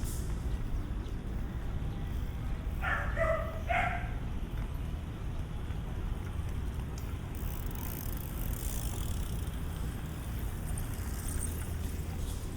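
City street ambience: a steady low rumble of traffic. About three seconds in, two short pitched calls sound in quick succession.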